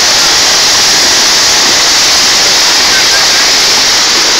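Storm floodwater rushing through a walled channel, with runoff pouring into it from an outlet in the wall: a loud, steady rush of water.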